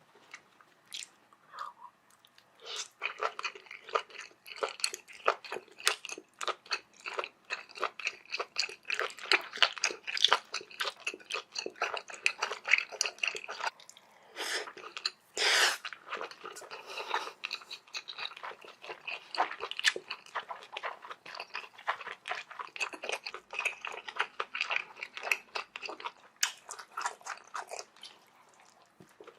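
Close-miked chewing: rapid wet, crunchy mouth clicks and smacks of a mouthful being chewed, with a short louder breathy sound about halfway through.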